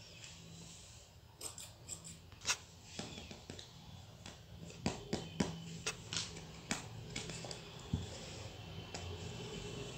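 Hands handling sheets of craft foam and cardboard, making scattered sharp taps, clicks and rustles, with the louder ones falling in the middle of the stretch.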